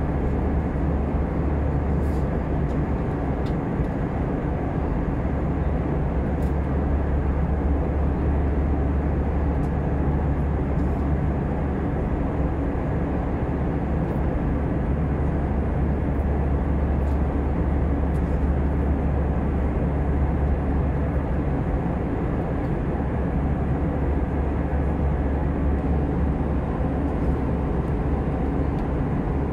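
Steady cabin noise of an Airbus A320 in flight: a constant low drone of engines and airflow heard from inside the passenger cabin.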